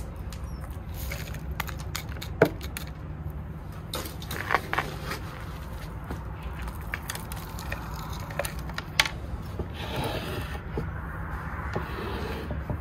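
Handfuls of potting soil being scooped and dropped into a wooden box around a repotted oak's roots: gritty rustles and scrapes with scattered small clicks, and a sharp knock about two and a half seconds in, over a low steady hum.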